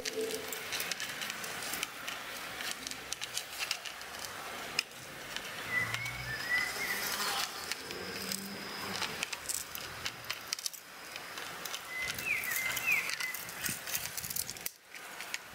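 Small dogs gnawing and tugging at a dry stick on grass, making soft cracks, clicks and rustles. Short high chirps come twice, about six seconds in and again near twelve seconds.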